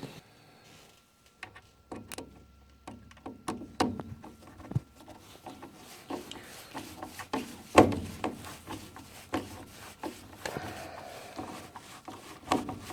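Irregular clicks, knocks and rubbing of furnace parts and screws being handled while the limit sensor is fitted to the new inducer motor, with one louder knock about eight seconds in.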